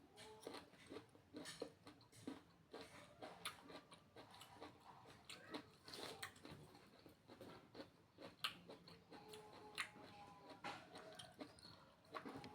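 Faint close-up chewing and eating: irregular wet mouth clicks and smacks.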